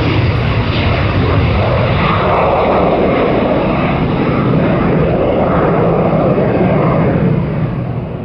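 Boeing 747-8F's GEnx jet engines running loud at high power, a continuous roar with a low steady drone under a noise that swells and fades in waves, easing off a little near the end.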